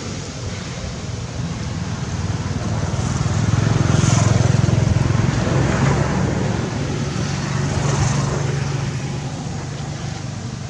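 A motor vehicle's engine running nearby with a steady low hum. It grows louder from about three seconds in, then eases off.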